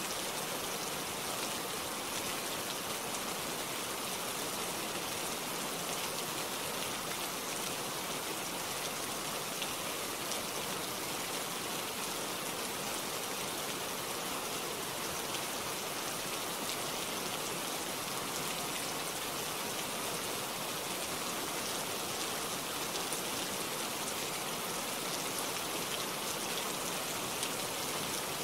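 Steady rain falling through tree leaves: an even hiss with faint ticks of single drops.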